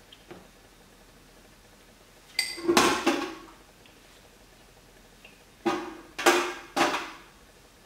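Stainless steel steamer pot clanking and ringing as wooden chopsticks knock against it while pieces of steamed lobster are picked out. One double clang comes about two and a half seconds in, then three more about half a second apart near the end.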